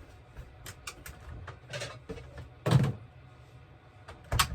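Kitchen handling sounds: a few light clicks and knocks, then two short, heavier thumps, one a little under three seconds in and one near the end, like things being set down on a counter or a cupboard shutting.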